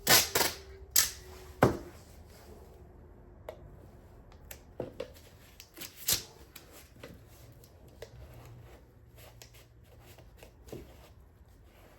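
Tape being pulled off the roll and torn in a few loud sharp rips in the first two seconds, then lighter crackling and clicks as it is stuck onto the rim of a paint can.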